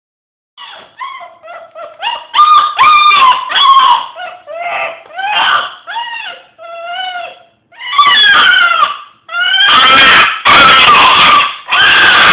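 A pet dog howling and whining in a run of short rising-and-falling cries. It gets louder about two seconds in, and the last four seconds hold long, harsh, raspy howls, the kind of noise the owner calls "demon noises".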